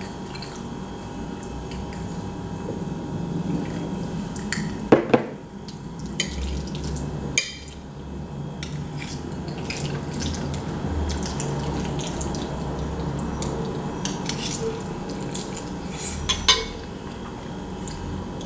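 Metal fork clinking and scraping in a casserole dish of mac and cheese, a few sharp clicks over a low steady background, with close-up eating sounds.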